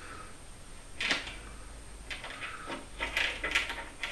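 Light clicks and taps of small metal hardware being handled: a quarter-inch bolt and flat washer being fitted to a wooden board. There is one short clink about a second in and a small cluster of them around three seconds in.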